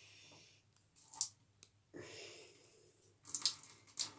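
Soft water splashes and drips, with a few sharp clicks in the last second as a wet shaving brush is handled.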